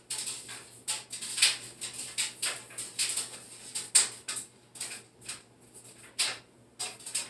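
A string of light, sharp clicks and taps, irregularly spaced at about two or three a second, the loudest about four seconds in.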